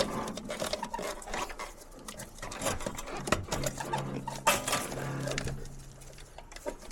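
Quick, irregular clicking and rattling of wiring and plastic connectors being handled as the windshield wiper plug and harness are worked loose.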